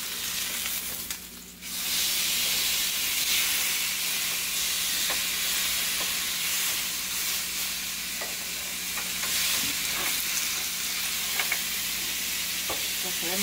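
Steaks sizzling on a hot stovetop grill pan, a steady hiss that gets louder about two seconds in, with a few light clicks of metal tongs against the pan as the steaks are turned.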